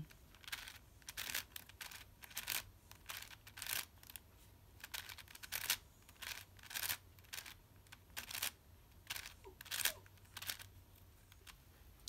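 Plastic layers of a 6x6 Rubik's Cube being turned by hand, a string of short scraping clicks coming singly or in quick pairs with brief pauses: the moves of the OLL parity algorithm.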